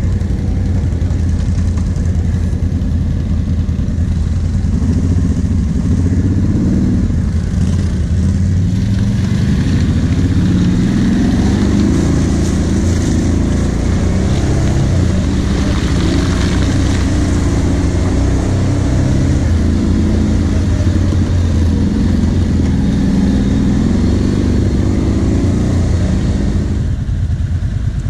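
Kawasaki KVF 750 Brute Force ATV's V-twin engine running under way on a muddy trail, its engine speed rising and falling with the throttle. About a second before the end it eases off toward idle.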